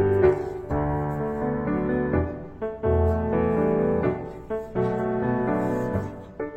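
Piano music: slow chords and melody notes struck one after another and left to ring.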